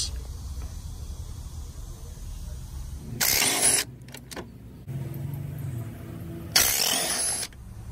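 Cordless impact wrench with a 17 mm socket running in two short bursts, each just under a second, about three and a half seconds apart, as it breaks loose and backs out the brake caliper bracket bolts.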